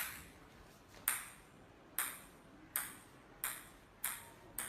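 A series of sharp, bright pings, each ringing briefly. They start about a second apart and come faster and faster, six or seven in all.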